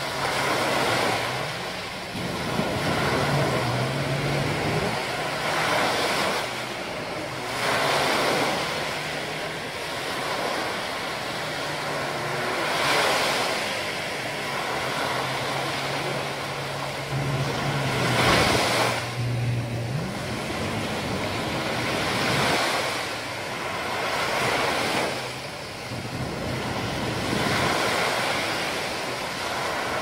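Small surf breaking on a sandy beach: waves wash up the shore in surges every few seconds over a constant hiss of moving water.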